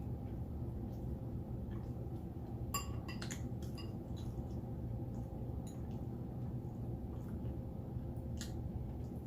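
Eating utensils clinking lightly against a dish: a few scattered sharp clicks, the closest together about three seconds in, over a steady low hum.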